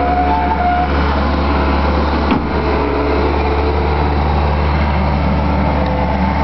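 Case skid steer's engine running steadily under load, with a single short knock about two and a half seconds in.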